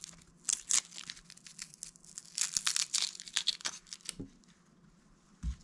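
Papery skin being peeled off a halved shallot by hand, crackling and crinkling in quick little tears, with a couple of soft knocks near the end.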